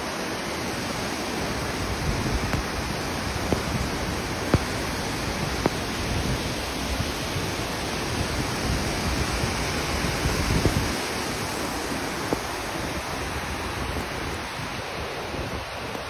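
Heavy rain and rushing water in a flash flood, a dense steady hiss with a few scattered sharp ticks.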